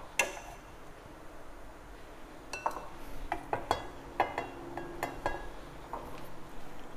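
Wooden chopsticks clinking against a metal cooking pot and a bowl while boiled pork belly pieces are lifted out to drain. One sharp clink right at the start, then a run of light clinks, some with a short ring, from about two and a half to five seconds in.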